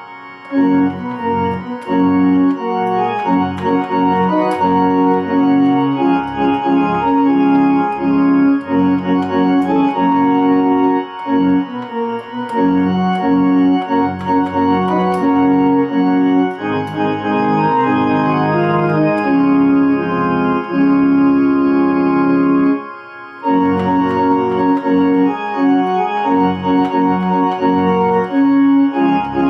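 Kimball electronic home organ playing a hymn in sustained chords over a bass line, with a brief pause about three quarters of the way through.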